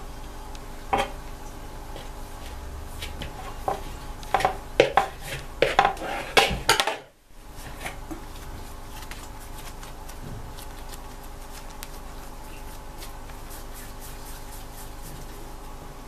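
Aluminium baking tray knocked and clattered as hands set dough into it: a single knock about a second in, then a quick run of taps and clatters with a short metallic ring between about four and seven seconds. After a brief dip, only a steady background hum with a few faint ticks remains.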